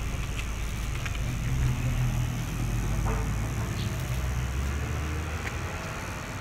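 Low engine rumble, like a motor vehicle passing close by, swelling about a second in and easing off near the end, with a few small clicks over it.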